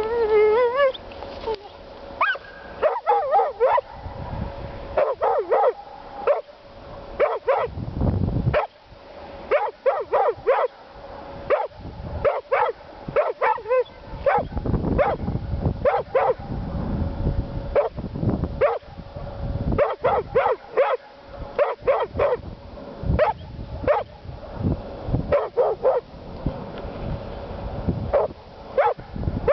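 A dog whining and giving many short yips and barks, over and over, with wavering whines near the start and end: the fretful, demanding noise of a dog trying to get at more food.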